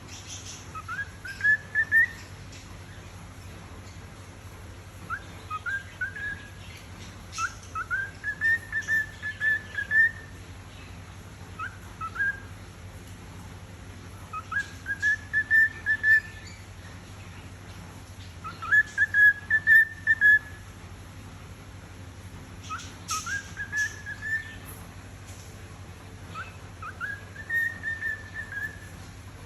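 A cockatiel whistling a song: short phrases of a few rising notes that level off into a held whistle, repeated every few seconds.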